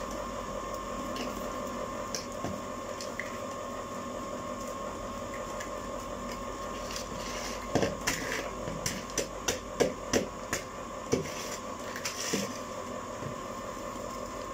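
Steady hum of an electric ice cream maker churning. From about eight seconds in, a quick series of sharp clicks and knocks, about a dozen in four seconds, comes from handling at a plastic bowl.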